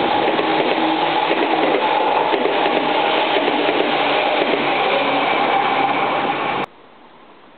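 Electric commuter train passing at close range: loud, steady running noise with several held hum tones. It cuts off suddenly near the end, leaving a faint outdoor background.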